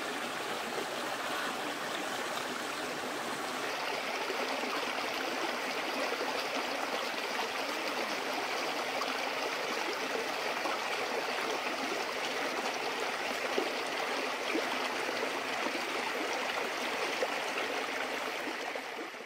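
A rocky stream flowing steadily, a continuous rushing of water that turns a little hissier about three and a half seconds in.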